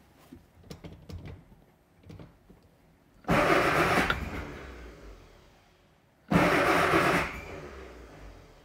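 Classic Mini's turbocharged A-Series four-cylinder engine being cranked twice, each attempt loud for about a second and then fading away. The cold engine does not keep running.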